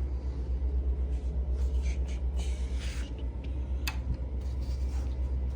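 Plastic cowl panel being wiggled loose from a car's windshield base: scraping and rubbing of plastic, then a single sharp click a little before four seconds in, over a steady low rumble.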